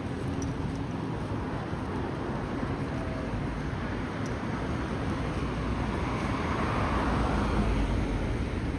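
Road traffic running steadily, with a vehicle passing that grows louder and peaks about seven seconds in.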